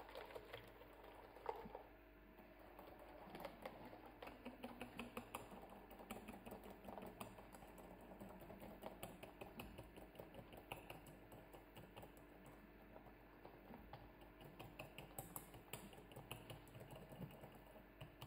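Wire whisk stirring a liquid honey-cocoa mixture in a glass bowl, with a rapid run of faint clicks as the wire taps and scrapes against the glass.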